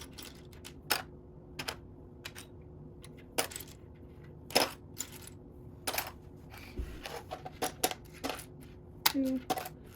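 Loose plastic Lego pieces clicking and clattering as they are sorted through and picked out, with single sharp clicks every second or so and a short run of small ticks about three-quarters of the way in.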